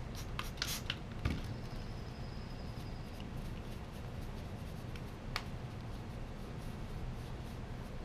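Metal parts rubbed and wiped with a cloth rag, with a few light clicks and scrapes of the parts being handled, mostly in the first second and a half, and one sharp click about five seconds in.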